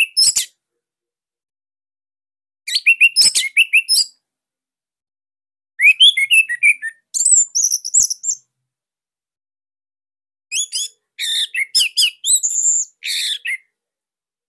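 Orange-headed thrush (anis merah) singing in short phrases of rapid, high chirping and whistled notes, about six phrases with brief silences between them.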